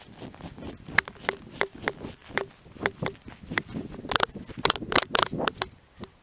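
Footsteps crunching in frozen snow: a run of sharp, irregular crunches that come faster around four to five seconds in.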